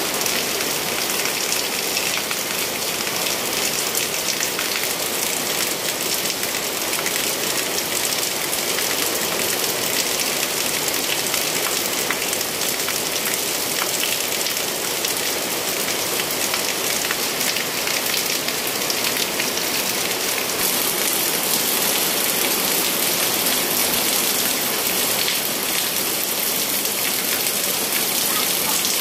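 Heavy rain falling steadily: a dense, even hiss of countless drops striking the ground and roofs. The hiss grows a little brighter about two-thirds of the way in.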